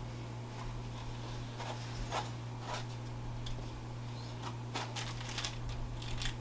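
Faint scattered clicks and rustles of an airsoft AK replica and its packaging being handled, over a steady low electrical hum.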